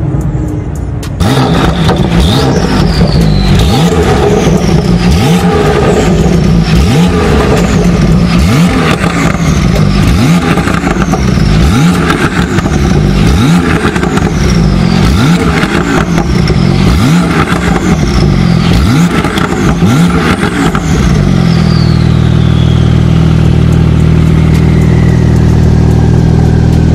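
Porsche 992 Turbo S twin-turbo flat-six, fitted with a Fi Exhaust valvetronic catback and 200-cell downpipes, blipped over and over while stationary, about one rev every second and a quarter, each followed by a high whistle falling away. Near the end the revving stops and it settles into a steady idle.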